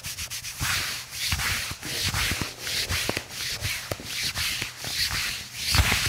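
Hands rubbing briskly over a patient's back through a T-shirt, a quick series of swishing strokes with soft thumps of hand pressure underneath.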